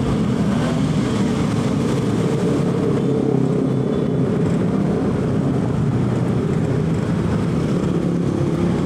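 Yamaha RX-King two-stroke single-cylinder engine running steadily through its stock exhaust while the motorcycle is ridden along a road.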